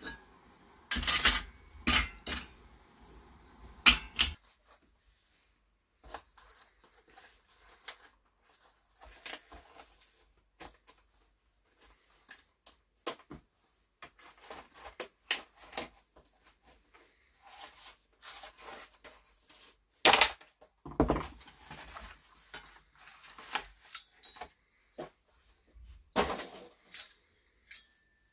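Aluminium heatsinks and their metal brackets being taken apart by hand and with a screwdriver on a wooden workbench: irregular metallic clinks, clatters and small clicks of parts being handled and set down. The loudest sharp knocks come three times in the first few seconds and again a few times in the last third.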